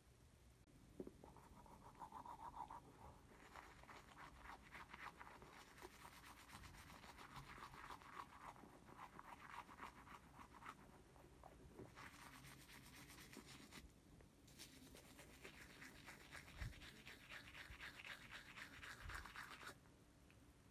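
A person brushing their teeth with a toothbrush: faint, rapid scrubbing in four bouts with short pauses between them, and two low thumps near the end.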